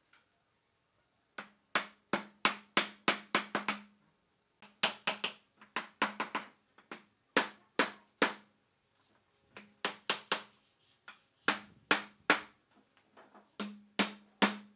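A hammer striking the end grain of solid-wood table legs, knocking them home into the table frame. The blows come in quick runs of three to ten, with short pauses between runs, and a low ring carries under each run.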